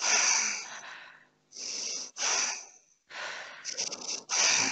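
A person in a hypnotic trance breathing hard and fast, about five loud, ragged breaths in quick succession. It is a sign of agitation: her heart is pounding, and right after this the hypnotist tells her to make her breathing even and calm.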